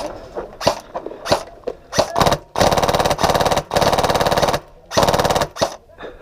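Polarstar Fusion-engine HPA MK46 airsoft gun firing. A few single shots come first, then three bursts of rapid automatic fire, each about a second or shorter, then two more shots near the end.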